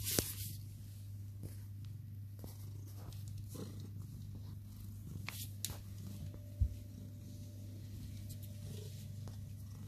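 Sphynx cat purring steadily, close to the microphone, with a few brief knocks; the loudest are near the start and about two-thirds of the way through.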